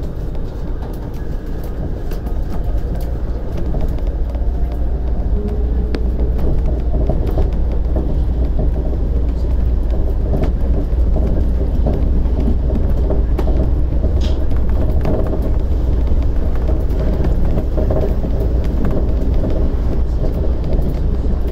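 Shonan Monorail 5000 series suspended monorail car under way, heard from inside: a steady low rumble of its rubber-tyred bogies running in the overhead track beam. It grows louder over the first few seconds as the train picks up speed, then holds steady.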